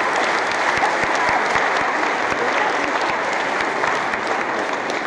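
Audience clapping steadily, starting to die away near the end.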